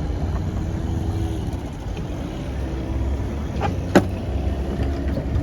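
A boat's engine running steadily, a low drone, with one sharp knock about four seconds in.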